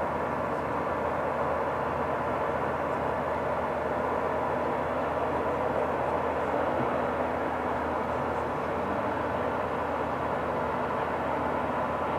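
Heavy diesel demolition machinery running steadily: an even, unbroken drone with no impacts or changes.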